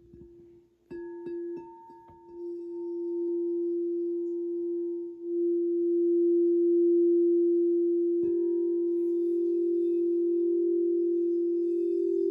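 Singing bowl ringing: a few light strikes about a second in, then its steady tone swells and holds. About eight seconds in another strike brings in a second, slightly higher tone, and the two waver against each other.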